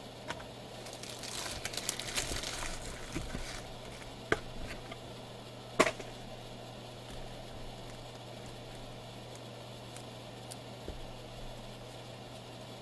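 Rustling and crackling for a couple of seconds, then two sharp clicks about four and six seconds in, the second the loudest, over a steady low electrical hum.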